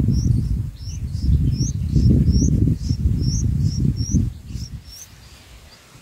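Bulbul nestlings begging at the nest while being fed: a rapid series of short, high, rising chirps, about three a second, that stop about five seconds in. A louder low rumble runs underneath and fades out shortly before the chirps end.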